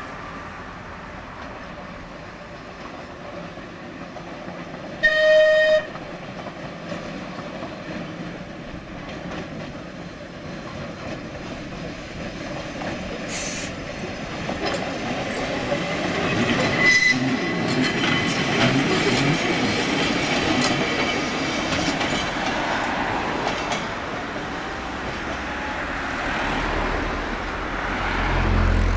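Manx Electric Railway tram No 7 and its trailer running past on the roadside track, the rail noise building to a peak about halfway through and easing off towards the end. About five seconds in, a short, loud horn blast, the loudest sound.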